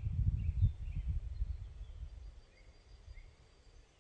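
Wind rumbling on the microphone, dying away a little over two seconds in, with a few faint bird chirps.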